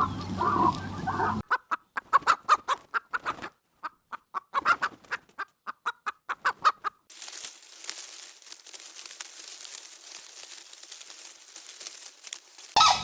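A bird's rapid calls: runs of short, sharp pulses in several bursts separated by brief silences, then a few seconds of faint hiss.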